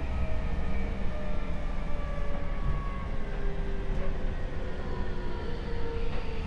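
Seibu 6000 series train's Mitsubishi SiC VVVF inverter and traction motors whining in several tones that slide slowly down in pitch as the train slows, over a steady low rumble of wheels and running gear.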